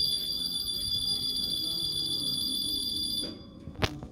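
Stop-request buzzer of a Karosa B732 city bus sounding a steady high-pitched electronic tone, the passenger's signal to the driver to stop; it cuts off about three seconds in, and a sharp click follows shortly after.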